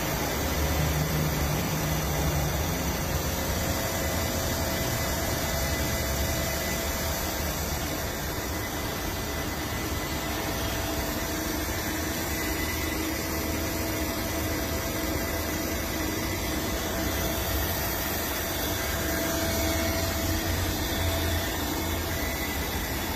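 Takaoka 2.5 m engine lathe running free with no cutting tool fitted, a steady, quiet hum with no knocking or rattling: the machine runs smoothly.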